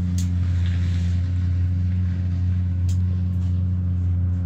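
Steady low mechanical hum at an even pitch, with a couple of faint clicks.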